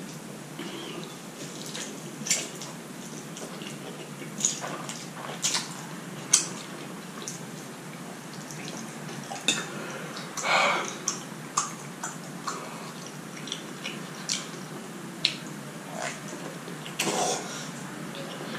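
Close-up eating sounds of a person eating spicy instant noodles with chopsticks: wet mouth clicks and smacks at irregular intervals, with a short slurp about ten seconds in and another near the end.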